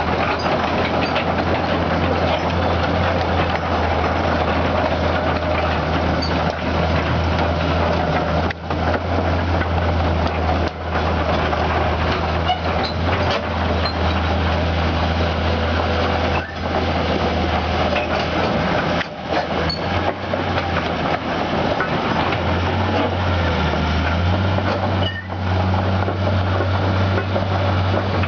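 Heavy diesel engine of a construction vehicle running steadily, with a deep hum under a noisy mechanical wash; the hum steps up a little in pitch about 22 seconds in.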